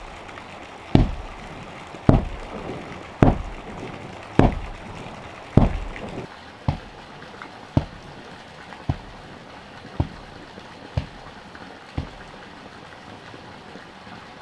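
Heavy wooden log tamper pounding bare earth flat, a dull thud about once a second; the thuds grow fainter about halfway through.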